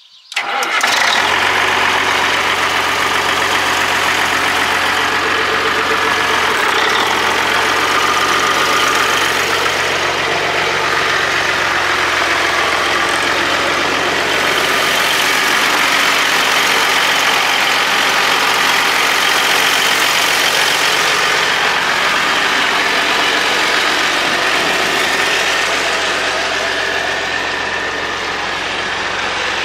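Caterpillar 3406 inline-six diesel engine in a 1976 International 2070 truck idling steadily. Its low hum weakens after about twelve seconds.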